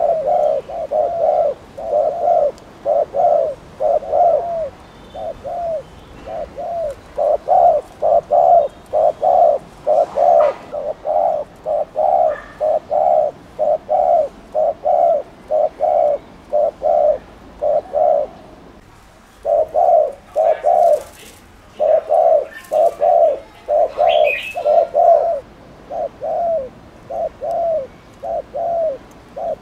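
Spotted dove giving its rapid 'gù' cooing: a long run of short, low coo notes, about two to three a second, with a brief pause about two-thirds of the way through.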